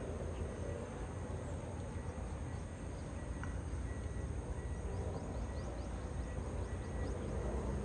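Steady outdoor background with a low rumble from distant machinery or traffic, and a few faint high bird chirps about five to seven seconds in.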